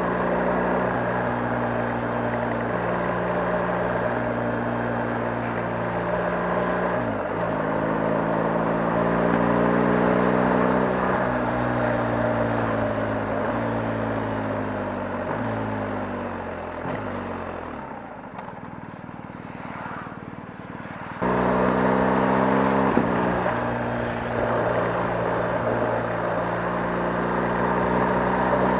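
BMW R 1250 GS boxer-twin engine under way, pulling up through the gears with short breaks at each shift. In the middle the engine speed falls away and the sound quiets for a few seconds, then it comes back suddenly loud and climbs again.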